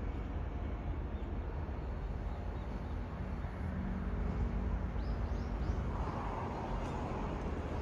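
Faint low steady rumble of a distant firefighting helicopter, with a few short bird chirps about five seconds in.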